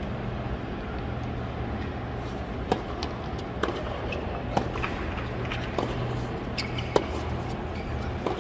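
Tennis rally in a large stadium: sharp pops of racket strikes on the ball, about one a second starting nearly three seconds in, over the low, steady hum of a hushed crowd.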